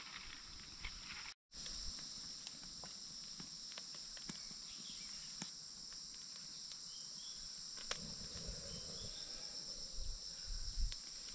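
Steady high-pitched chorus of forest insects, with a few faint scattered clicks. The sound drops out completely for a moment about a second and a half in.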